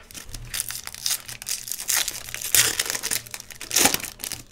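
A foil trading-card pack wrapper being crinkled and torn open by hand: a steady run of crackling, with the loudest rips a little past halfway and near the end.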